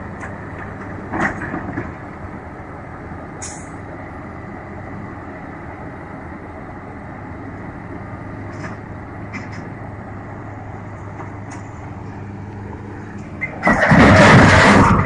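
Heavy diesel engine running steadily, with a few short knocks and a brief high squeal. About a second and a half before the end, a sudden loud burst of noise breaks in as the Komatsu PC200 excavator tips off the side of the lowboy trailer.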